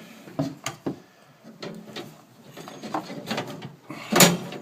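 Handling knocks and rubbing as PEX pipe is pushed and seated into a SharkBite push-fit fitting: several short clunks, the loudest about four seconds in.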